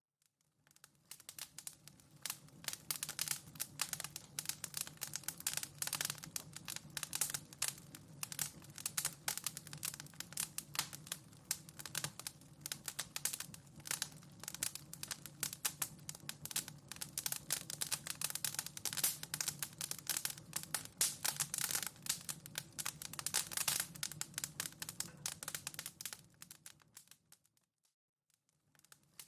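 Fire in a fireplace crackling: a dense run of small pops and snaps over a steady low rumble of the flames. It fades in over the first couple of seconds and fades out near the end, then starts again.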